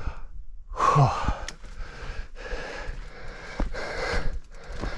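A mountain biker breathing heavily after a failed attempt at a steep climb, out of breath, with a voiced exhale about a second in, followed by quick, regular breaths.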